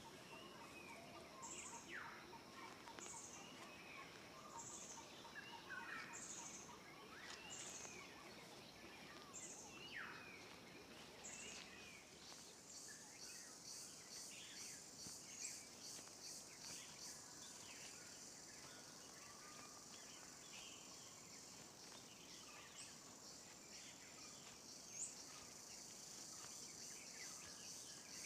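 Faint outdoor nature ambience of bird chirps and insects. A high-pitched call repeats about once a second at first, and from about halfway a dense, high insect chorus like cicadas or crickets takes over.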